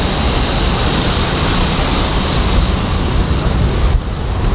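Loud, steady rush of wind and road noise on the microphone of a moving bicycle, mixed with the engines of trucks running under an overpass. It eases briefly near the end.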